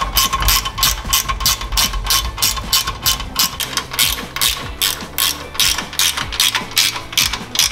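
Ratchet wrench clicking rapidly and evenly as bolts on a steel tub rack are tightened.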